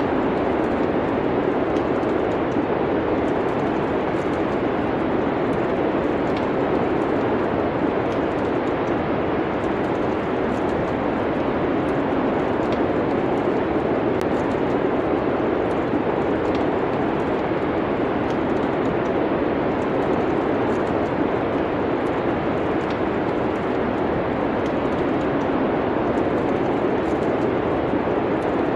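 Steady rushing winter wind with faint, scattered crackles of a wood fire.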